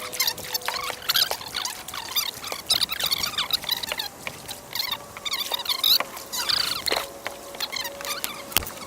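Many small birds chirping and warbling at once, with scattered sharp clicks and knocks.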